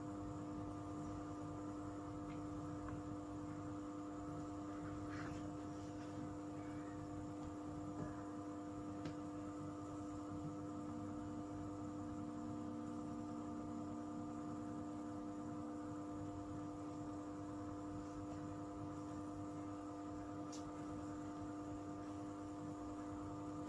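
Steady electrical hum made of several fixed tones, with a few faint clicks.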